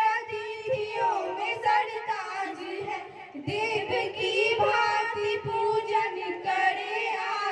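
A group of girls singing a welcome song (swagat geet) together through microphones and a PA, in held, gliding phrases with a brief breath-pause about three seconds in.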